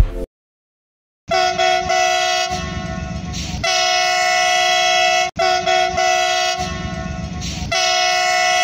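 Train horn blowing long, steady chord blasts, with a low rumble under part of each run. The same sequence sounds twice in a row with a brief break between, after about a second of silence.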